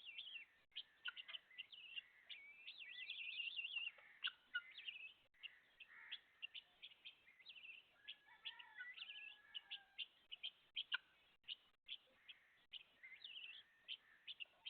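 A flock of young chicks peeping: a dense, continuous run of short, high chirps, many overlapping.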